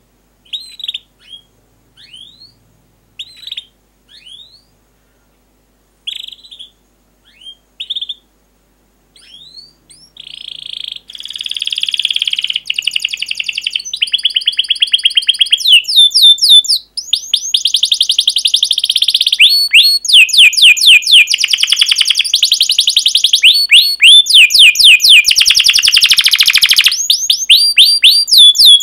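Domestic canary singing. For the first ten seconds or so it gives separate short rising chirps, a second or so apart. Then it breaks into loud, continuous song of rapid trills and rolls, each phrase packed with many quick repeated notes.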